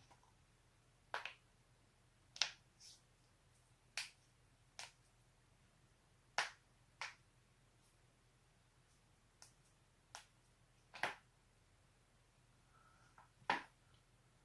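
Human joints cracking: about ten short, sharp pops one at a time at irregular intervals.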